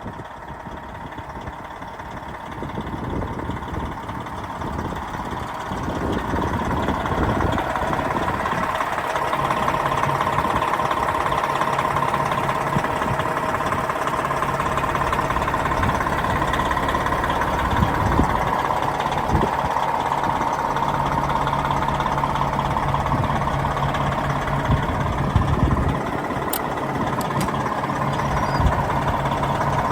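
Detroit Diesel Series 60 inline-six diesel of a Peterbilt 378 dump truck running, getting louder over the first several seconds and then holding steady.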